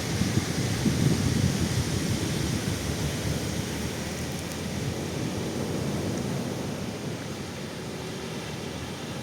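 Ocean surf breaking on a beach: a steady rush of waves, loudest in the first couple of seconds and easing off after.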